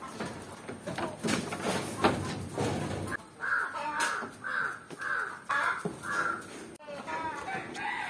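Chickens calling, with a run of about seven short, evenly spaced calls from about three to six seconds in.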